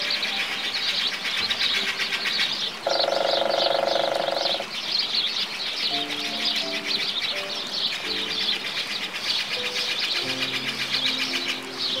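House sparrows chirping, a dense run of quick, repeated high chirps, over background music with held notes, loudest at a chord about three seconds in.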